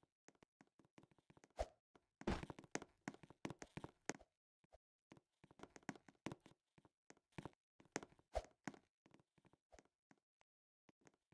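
Faint, irregular taps and knocks, scattered throughout, with a denser cluster about two to four seconds in.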